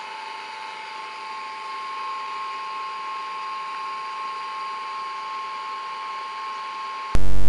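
Small 125-watt electric coconut and cassava grater switched on, its motor and stainless-steel grating drum spinning up over the first couple of seconds and then running steadily with a steady whine. Near the end, a sudden, much louder buzz cuts in and stops abruptly after about half a second.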